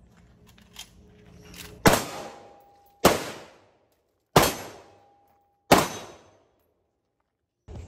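Ruger AR-556 MPR semi-automatic rifle fired four single shots, about a second and a half apart, each crack trailing off in echo.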